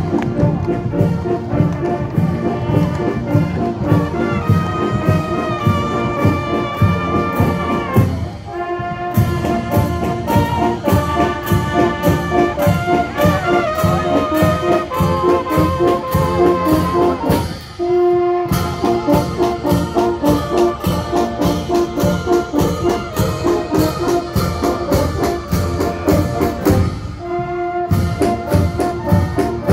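Marching brass band of trumpets, trombones and tubas playing a march over a steady drum beat, breaking off briefly three times between phrases.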